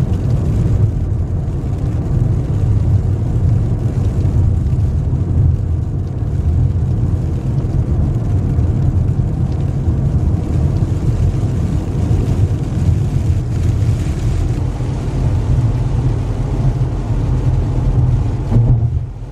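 Car driving on a wet road, heard from inside the cabin: a steady low rumble of engine and tyres with a faint hiss above it, briefly dipping near the end.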